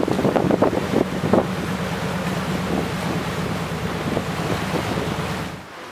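Wind buffeting the microphone over lapping water, with a steady low engine drone from shipping on the strait and a few knocks in the first second and a half. The sound drops off abruptly near the end.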